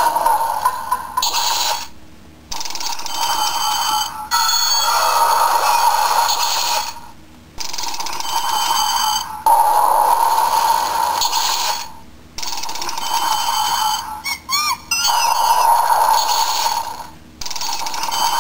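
Electronic sound effects and jingles from a Shinkenger toy sword as its Origami disks are spun in the guard. The tinny tones play in stretches of a few seconds, broken by short pauses about every five seconds, with chirping rising and falling notes near the end.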